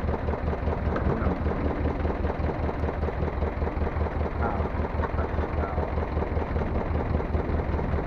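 Fishing boat's engine idling: a steady low rumble with a fast, even throb.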